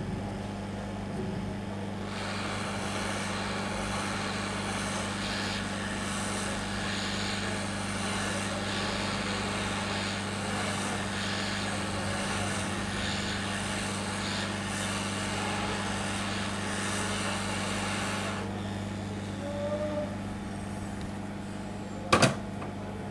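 Hot air rework station blowing hot air onto a phone circuit board to melt the solder under a power IC so it can be lifted: a steady hiss of air from about two seconds in until about eighteen seconds, over a steady low hum. A single sharp click near the end.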